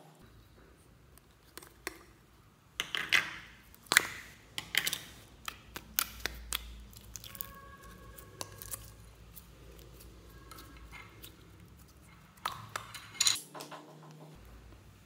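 Hands squeezing and pulling glossy red slime out of a small plastic container, making sticky squelches and sharp clicking pops. The clicks come in clusters about three seconds in, around six seconds, and again near the end.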